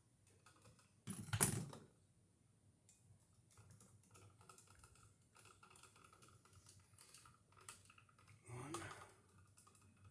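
Small clicks and taps of hand tools and wires being worked at a wall outlet, with one louder clatter about a second in.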